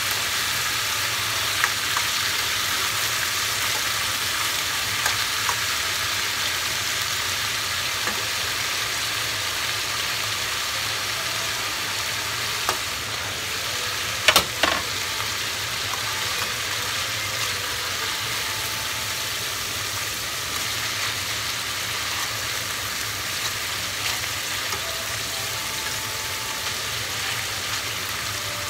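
Marinated chicken pieces sizzling in hot sunflower oil in a stainless steel pan, a steady frying hiss. Scattered short clicks of metal tongs against the pan as the pieces are turned, with a louder cluster of clacks a little past halfway.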